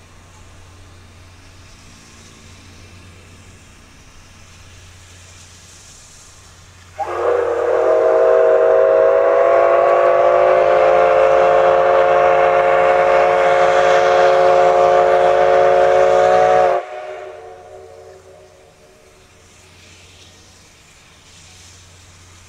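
Steam whistle of a C57 steam locomotive sounding one long blast of about ten seconds, several steady tones at once, which cuts off abruptly; blown as the train departs the station.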